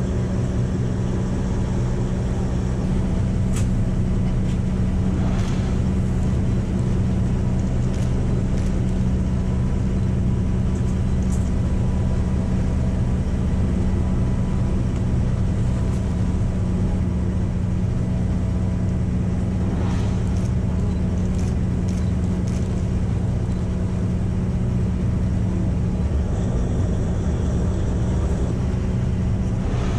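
Tour boat's engine running steadily, a low, even hum.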